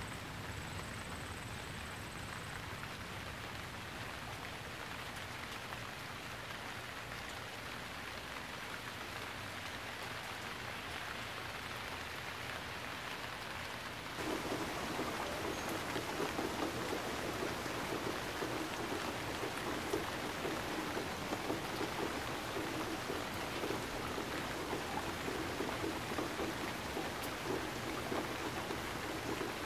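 Steady hiss of falling or running water, like rain. About fourteen seconds in it changes abruptly to a louder, fuller sound.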